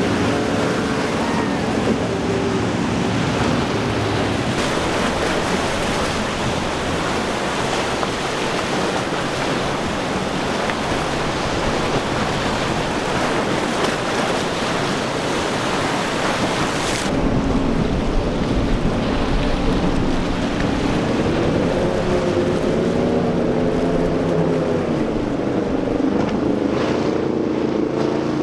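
Breaking waves and rushing water with wind on the microphone. About two-thirds of the way through, the hiss drops away and motorboat engines take over, their drone rising and falling in pitch.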